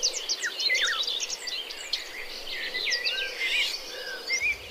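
Small birds chirping outdoors: many short, high, quickly sweeping chirps in irregular flurries over a faint background hiss.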